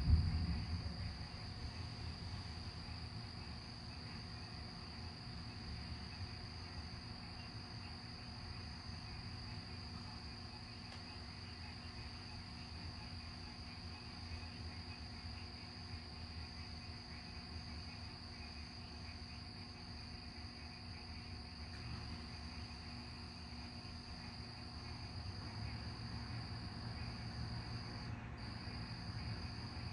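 Steady high chirring of night insects over a low rumble of distant thunder that is loudest at the very start and dies away, swelling slightly again near the end.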